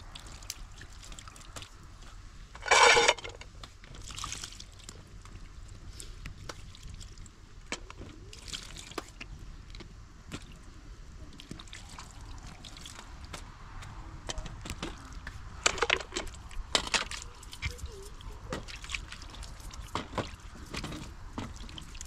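Water trickling from a plastic jug over green peppers and carrots as they are rinsed over a metal tray, with scattered splashes and small knocks of vegetables against tray and pan. A short, louder splash comes about three seconds in.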